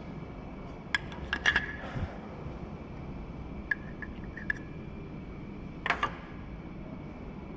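Light metallic clinks and taps from hands working at the compressor's terminal connections: a cluster about a second in, a few small ticks near four seconds, and one more clink near six seconds, over a steady low hum.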